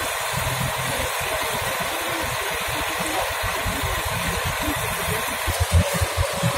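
Fire engine running steadily close by: a dense steady hiss over an uneven low rumble, the rumble growing louder near the end.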